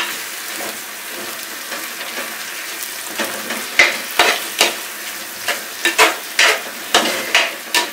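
A long metal spoon stirring and scraping a thick onion-tomato masala in a clay pot, over a steady sizzle of frying. The scrapes come as sharp strokes, sparse at first and then about two or three a second in the second half.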